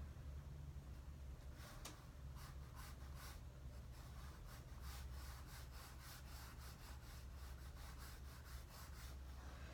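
Faint scratchy strokes of a drawing tool on paper: a quick run of short back-and-forth strokes, about three or four a second, starting a couple of seconds in.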